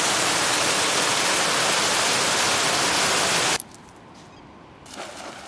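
A loud, steady hiss that cuts off suddenly about three and a half seconds in, leaving only a quiet background.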